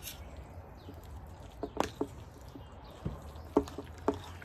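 Metal forks clicking and scraping against plates as jjajangmyeon noodles are stirred, a handful of short clicks over a low background hum.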